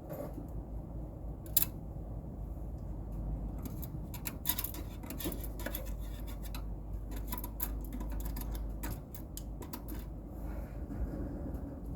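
Hand work on the outdoor unit's metal parts: scattered clicks, taps and scraping, with one sharp click about one and a half seconds in and a busier run of rapid clicks through the middle, over a steady low hum.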